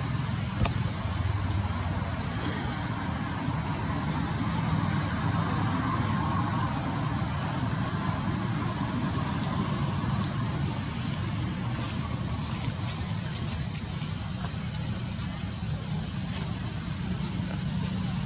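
Steady outdoor background of distant road traffic: a low, even rumble under a constant high-pitched drone.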